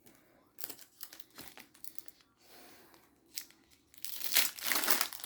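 Foil booster-pack wrapper crinkling and being torn open, in scattered crackles that turn into a louder, denser stretch of crinkling near the end.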